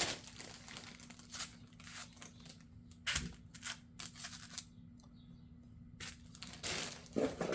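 Cardboard and plastic packaging rustling, with scattered light clicks as the sander is handled and taken out of its box, and one louder knock about three seconds in.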